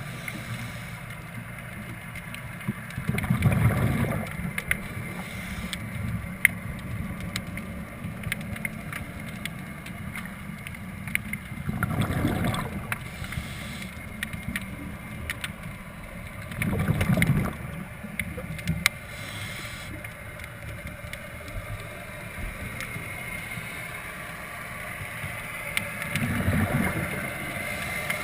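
Underwater, a scuba diver's exhaled breath bubbles out of the regulator four times, each a rushing burst about a second long. Between the breaths there is a steady low rumble with scattered sharp clicks.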